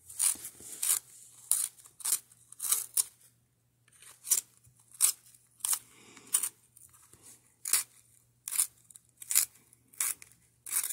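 Colored pencil being sharpened in a handheld Fiskars flip sharpener: the blade shaves the wood and lead with each twist of the pencil, giving short scraping strokes about one and a half times a second, with one brief pause about three seconds in.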